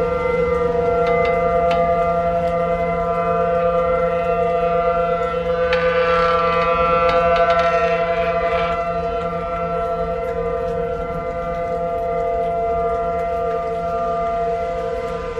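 Outdoor warning siren sounding a steady, unwavering tone of several pitches at once, alerting for severe weather. About six seconds in it grows louder and brighter for a few seconds, then settles back.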